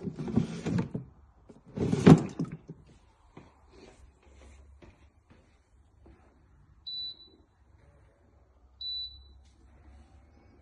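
Electric fan being handled: two loud rustling knocks, a few small clicks, then two short high beeps about two seconds apart from its control panel.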